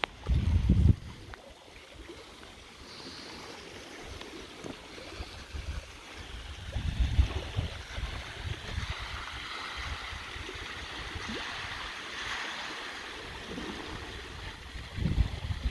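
Small wind-driven waves lapping and splashing against the concrete face of a dam, with gusts of wind buffeting the microphone, strongest in the first second.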